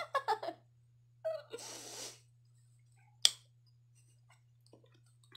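A woman's brief laughter, then a long breathy exhale, then a single sharp click or knock about three seconds in, over a low steady hum.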